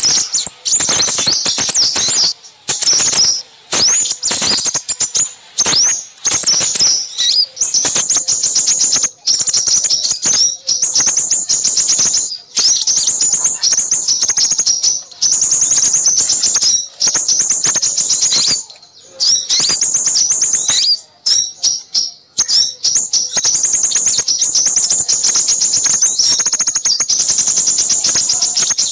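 Small songbirds chattering and trilling in a dense, high-pitched stream of rapid chirps with only brief pauses. It is a lure call used by bird trappers to draw in crimson sunbirds.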